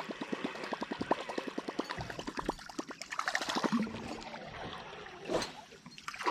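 Topwater musky lure being reeled across the water, its tail plopping and gurgling in a fast, even rhythm that dies away about four seconds in, followed by one sharper splash.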